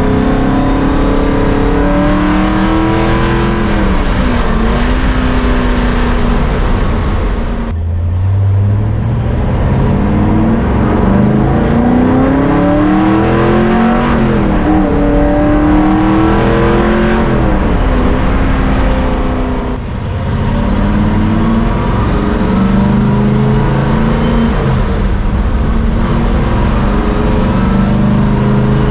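1955 Chevrolet Bel Air hot rod's engine heard from inside the cabin, pulling hard through the gears: the revs climb and drop back at each shift, several times.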